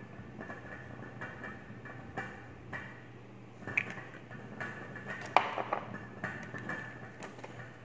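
Small kitchen handling sounds as sauce bottles and a ceramic bowl are handled: scattered soft clicks and taps, a short high ping near the middle, and one sharp clink a little past halfway, over a faint steady hum.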